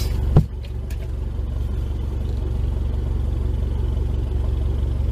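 Four-wheel-drive pickup's engine idling with a steady low rumble, heard from inside the cab, with a single thump about half a second in.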